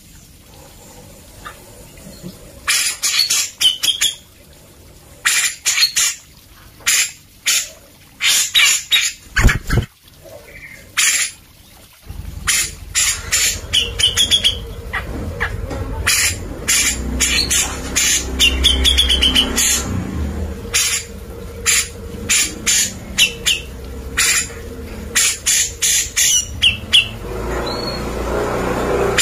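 Grey-cheeked bulbul (cucak jenggot) singing, with bursts of loud, sharp notes in quick series and a few short warbled notes between. A low rumble runs underneath from about the middle on.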